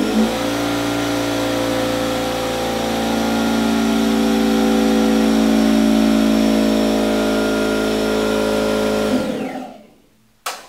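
Red pancake air compressor running loudly, a steady drone of several tones, switched off about nine seconds in and spinning down. Near the end a sharp start, then the California Air Tools 8010 ultra-quiet oil-free compressor running far more softly.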